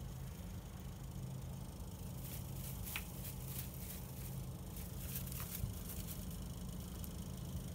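Faint scratchy rustling in a few short bits, about two and a half to three and a half seconds in and again about five seconds in, over a steady low hum.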